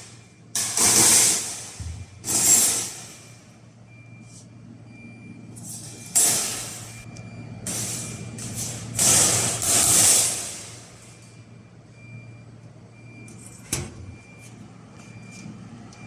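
Fiber laser metal cutting machine cutting stainless steel: loud bursts of hissing gas at the cutting head, about five of them over the first ten seconds, over a steady low machine hum. Short high beeps repeat about once a second, with a sharp click near the end.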